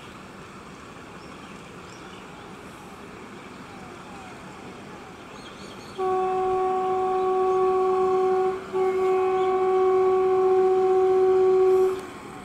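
WAG-7 electric locomotive's horn sounding a long steady blast of about six seconds, starting about six seconds in with a brief break partway through, over the low rumble of the approaching goods train.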